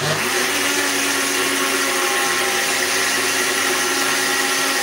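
Countertop jug blender switching on and running steadily at full speed, blending diced watermelon, ginger, lemon juice and a little water into a drink.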